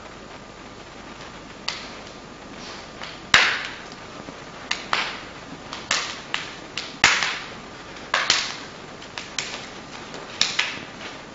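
Sharp slaps of hands and forearms meeting in a Wing Chun fan sao / lap sao trapping drill: about a dozen irregular smacks, the loudest about three and a half and seven seconds in, each with a short ringing tail, over a steady hiss.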